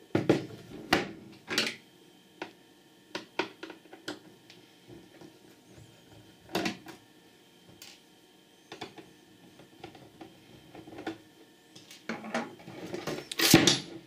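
Scattered light clicks and taps of screws being undone from a Netgear network switch's metal case and set down on a wooden table. About twelve seconds in, a louder clatter as the switch is turned over and its lid falls off.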